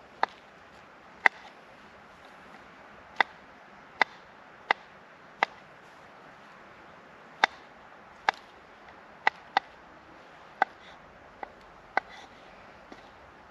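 A knife slicing mushrooms on a wooden chopping board: single sharp knocks of the blade striking the board, about one a second at an uneven pace.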